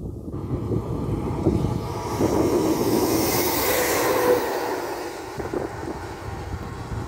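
SNCF BB 26000-class electric locomotive running light past at close range: a rush of wheel and motor noise that builds to its loudest about three to four seconds in, then fades away.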